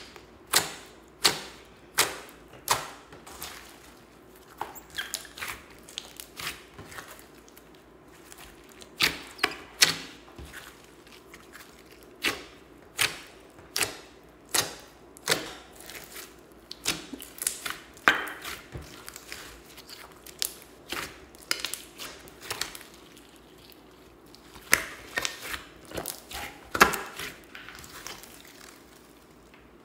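A large mass of glossy slime being squeezed and pressed by hand, giving sharp, wet pops and clicks at an irregular pace of about one or two a second, sometimes several close together.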